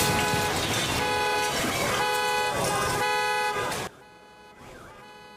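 Car alarms sounding in repeated honking tones right after a large explosion, set off by the blast, over a steady background rush. The sound cuts off abruptly almost four seconds in, leaving a faint background.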